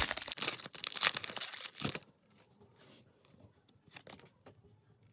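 Crinkling and rustling of a plastic card pack wrapper and trading cards being handled for about two seconds, then a few faint clicks and taps.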